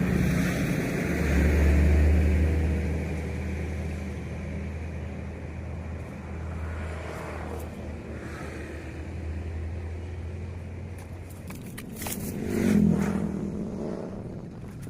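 A motor engine running with a steady low hum, swelling about two seconds in and slowly fading. A short, louder noise with a few clicks comes near the end.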